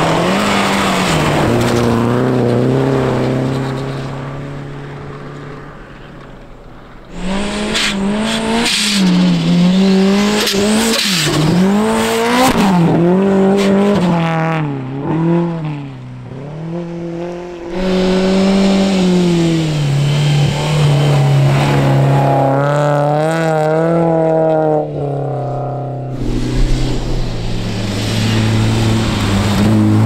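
Turbocharged flat-four engines of Subaru Impreza WRX STI rally cars revving hard on a snow track, the pitch climbing and dropping with gear changes and throttle lifts over several passes. One car fades away a few seconds in before another comes in loud and close.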